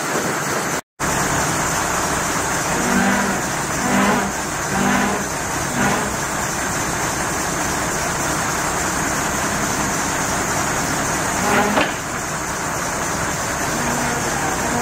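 1995 Ford LNT8000 roll-off truck's engine running steadily with its hydraulic hoist raised, with a few brief louder surges in the middle and once more near the end.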